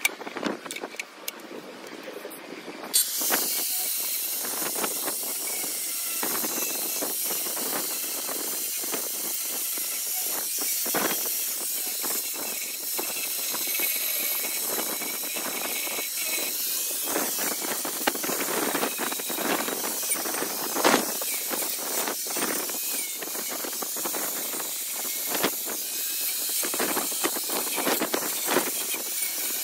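A few knocks as the log is set in the clamp, then about three seconds in an angle grinder with a carving disc starts up and runs continuously, cutting into a log: a loud high hiss with rough, uneven grinding scrapes as the disc bites the wood.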